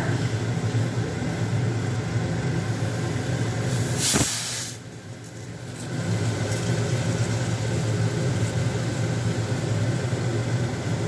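Premier pressure cooker whistling, steam venting through the weight valve in a steady rushing hiss. About four seconds in, a sharp loud burst of steam, then the hiss briefly dies down before building back up.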